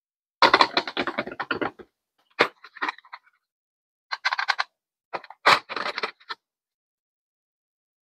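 Product packaging being handled and opened: four bursts of crackling, clicking and rattling with dead silence between them.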